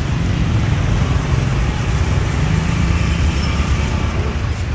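Street traffic noise, with a vehicle engine running steadily as a low rumble.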